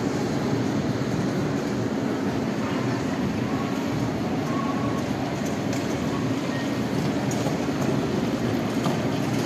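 Steady low rumbling ambient noise of a large shopping-centre atrium, even throughout with no distinct events.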